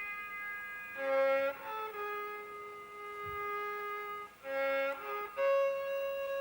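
Violin music: a slow melody of long held notes, changing pitch every second or two.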